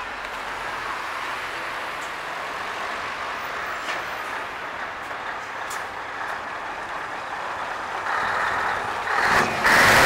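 Scania 143 500 truck with its 14-litre V8 engine approaching and passing close. It grows louder from about eight seconds in and is loudest near the end; before that there is a steady traffic noise.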